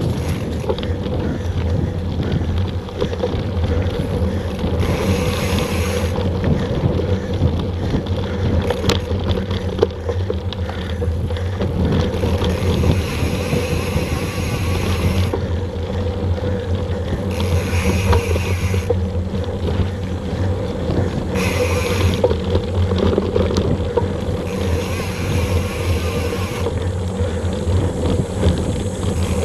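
Mountain bike rolling fast over a dirt singletrack: a steady rumble and rattle of tyres and frame over the rough ground, mixed with wind noise on the action camera's microphone. Several times a brighter hiss rises for a second or two and then drops away.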